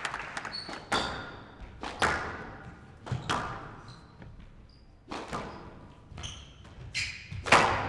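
Squash rally: sharp cracks of racket on ball and ball off the court walls, about one a second, echoing in an indoor court, with a few short squeaks of shoes on the court floor.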